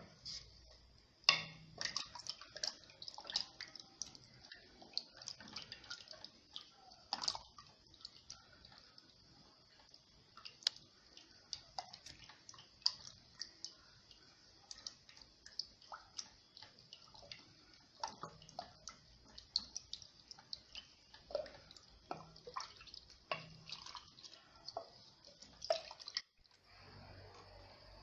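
Ladle stirring a thin flour-and-water batter in a pot: a long run of irregular light clicks and taps of the ladle on the pot with liquid sloshing, stopping suddenly about two seconds before the end.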